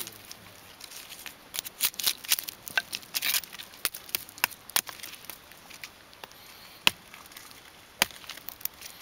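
A Lauri Leuku knife with a 175 mm carbon-steel blade chopping into a dead wooden branch, each stroke a sharp crack of steel biting wood. A quick run of chops comes between about one and a half and three and a half seconds in, followed by a few single strokes spaced a second or more apart.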